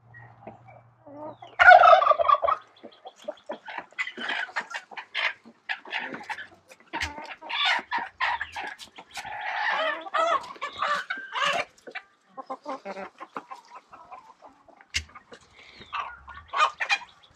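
A backyard flock of chickens clucking and calling, with a strutting turkey tom gobbling among them; the loudest call comes about two seconds in.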